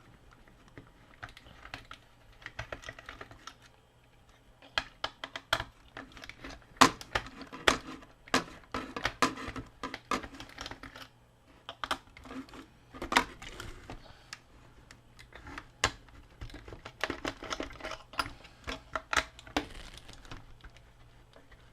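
Irregular small clicks and taps of a small Phillips screwdriver working at the screws in the plastic back of an action figure, with the plastic body being handled. The clicks are sparse at first and come thickly from about five seconds in.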